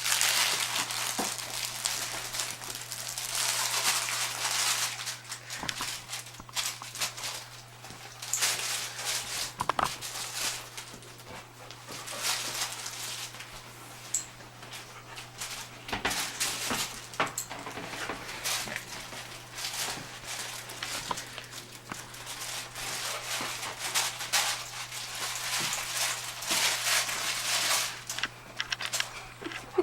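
Dogs playing with and mouthing a crinkle-filled plush toy: irregular bursts of crinkling and rustling with a few sharp clicks.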